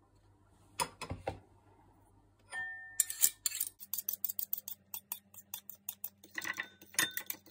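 Metal fork and spoon clinking against each other and against a ceramic bowl as yogurt is scraped off the spoon: a few clinks about a second in, one clink that rings on near the middle, then a fast run of light clicks, several a second.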